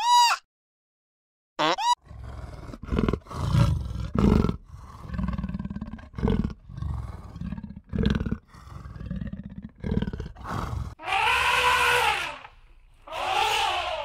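Animal calls: a long run of deep, rough roaring grunts repeated about every half second to second, followed near the end by two loud, high calls rich in overtones.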